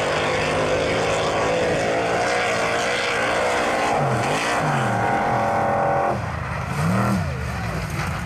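Mud drag racing vehicle's engine running hard at high revs, then the revs swinging down and back up a couple of times in the second half.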